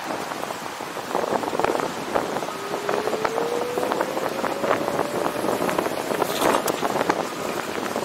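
Wind buffeting the microphone, with a dense crackle and many sharp clicks. A faint whine rises slowly in pitch through the middle.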